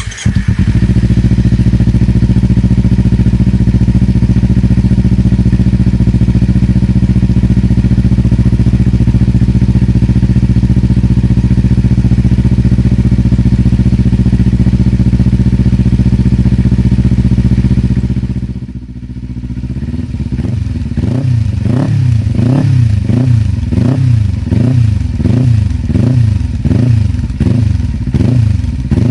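Kawasaki Ninja 300 parallel-twin engine through a ZARD Penta full exhaust with the silencer insert removed, loud. It holds a steady engine speed, drops back about two-thirds of the way in, then is revved in quick repeated blips, about one a second.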